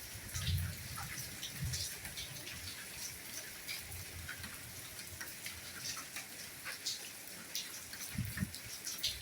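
Soft rainfall: a steady hiss with many separate drops ticking close by, and a few low thuds about half a second in and again near the end.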